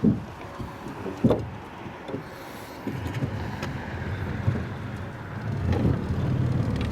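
Two sharp knocks, then a small boat's outboard motor running, growing steadily louder.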